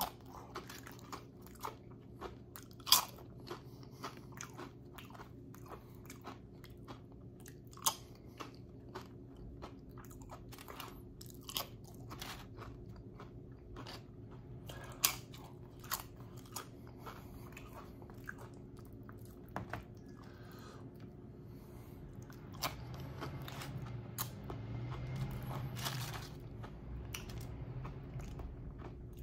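Close-up chewing with sharp, irregular crunches of tortilla chips being bitten and chewed, over a steady low hum.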